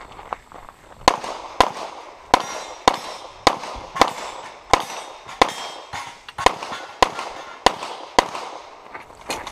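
Semi-automatic pistol firing a rapid string of about fourteen shots, roughly half a second apart with one slightly longer pause past the middle. Each shot rings off with a short echo.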